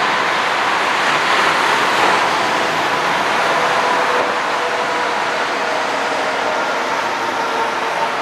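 Airbus A320's CFM56 turbofan engines running, heard from a distance as a steady jet noise with a faint high whine.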